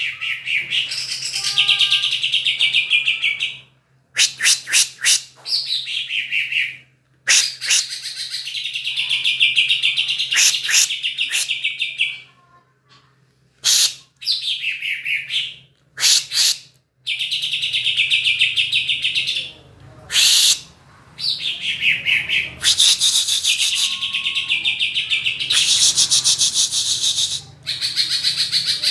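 A songbird singing loud phrases of fast, buzzy trills, broken by sharp short notes and brief pauses. The song is played to provoke a greater green leafbird into singing.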